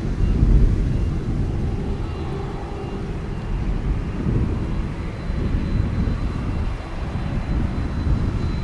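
Boeing 767-300 freighter's jet engines at taxi power, a low uneven rumble; a faint high engine whine comes in near the end as the aircraft turns nose-on.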